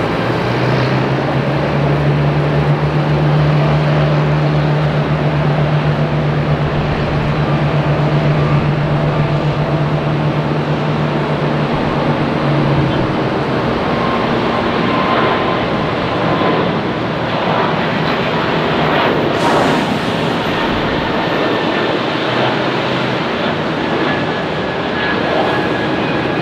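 Jet airliner engines running, loud and steady throughout, with a low steady hum that fades out about halfway through.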